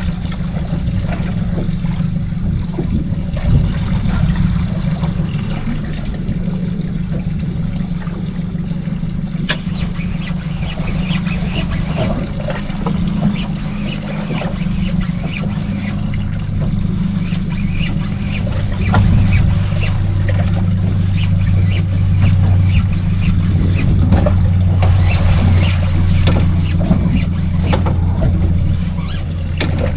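Small fishing boat's engine running steadily, with water splashing and lapping against the hull; about eighteen seconds in the engine's lower hum grows stronger.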